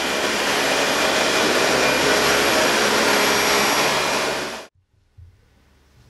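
Dyson DC40 upright ball vacuum cleaner running over carpet: a steady rush of air with a faint whine over it. It cuts off suddenly about four and a half seconds in.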